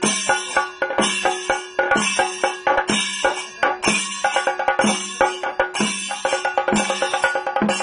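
Kerala melam percussion: a rope-laced cylindrical drum beaten with sticks in fast, dense strokes, with hand cymbals clashing about once a second in a steady rhythm.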